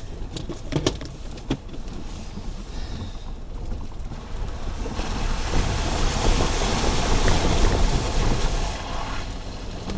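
Off-road vehicle driving through a shallow water crossing on a sand track: a few knocks as it bumps over the ruts in the first second and a half, then the tyres splash through the water for about four seconds from halfway in, over the steady low rumble of the engine and tyres.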